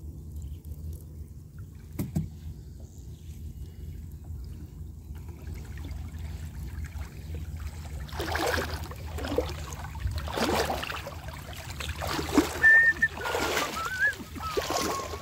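Lake water sloshing and swishing in repeated strokes about once a second, starting about halfway through, as someone wades through shallow, weedy water. A steady low rumble runs underneath, and a short wavering whistle-like tone comes near the end.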